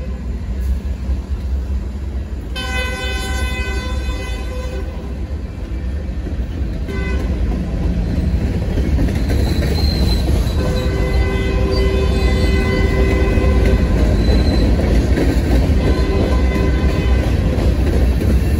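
BNSF freight train passing close by with a steady low rumble of rolling cars. The locomotive air horn sounds a blast ending just after the start, a longer blast about two and a half seconds in and a short toot near seven seconds. From about ten seconds on the rolling covered hoppers give off intermittent high squealing tones from the wheels.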